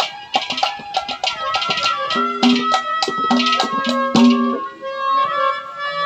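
Instrumental interlude of Haryanvi ragni folk music: rapid hand-drum strokes under a sustained reed melody of held notes.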